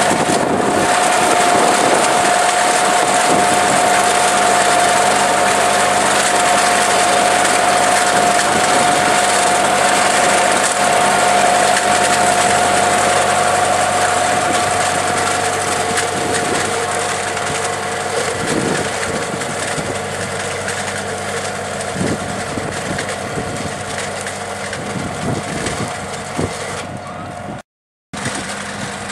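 Tractor engine running steadily while a front-mounted Rumax vine pruning machine cuts through the canes, with a steady high whine over the engine and irregular snaps of wood. Near the end the sound cuts out for a moment, then the engine carries on a little quieter.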